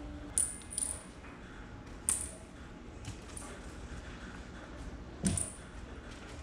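Short metallic jingles from a kitten's play toy, four of them, as kittens chase and leap about; the fourth, about five seconds in, comes with a soft thud as a kitten lands on the floor.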